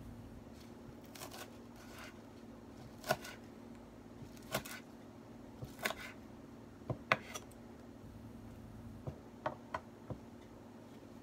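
Kitchen knife chopping green herbs on a wooden cutting board: about nine short, sharp knocks of the blade on the board, spaced irregularly and bunched together toward the end, over a faint steady hum.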